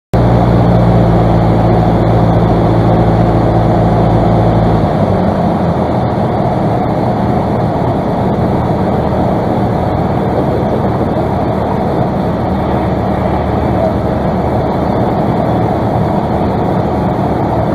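Cockpit noise of a single-engine piston light aircraft in flight: the engine and propeller run steadily, then about five seconds in the engine note drops as the throttle comes back to idle for a power-off approach. A lower idling drone and rushing airflow remain.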